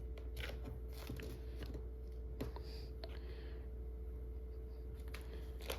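Faint scattered clicks and soft rubbing as fingers work a plastic screen-protector film down onto a flatbed scanner's glass, over a steady low hum.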